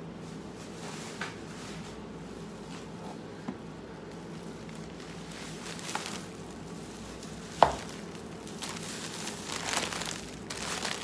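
Plastic grocery packaging crinkling and rustling as bagged salad is lifted and handled, with a few light clicks and one sharp knock about two-thirds of the way through. The crinkling grows denser near the end. A steady low hum runs underneath.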